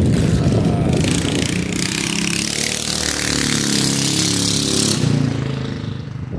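A motor vehicle passing close by, its engine note climbing in pitch, with a rushing hiss that dies away about five seconds in.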